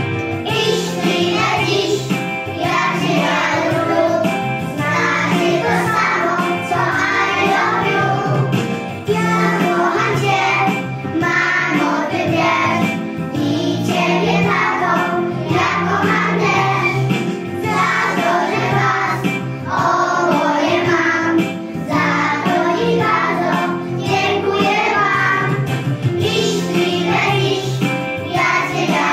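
A group of young children singing together over an instrumental accompaniment, the song running on without a break.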